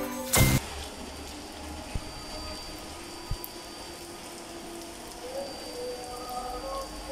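Heavy rain falling on a flooded street, a steady hiss of rain with occasional drips and clicks. It follows a brief loud hit at the very start, the close of a music sting.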